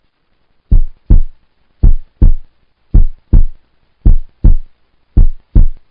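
Heartbeat sound effect: five loud double thumps, lub-dub, about a second apart.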